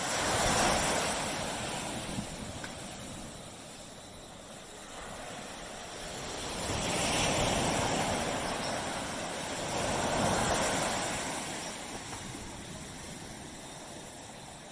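Tropical sea waves breaking and washing up on a beach, with three swells of surf: one about half a second in, one around seven seconds and one around ten seconds, falling back between them.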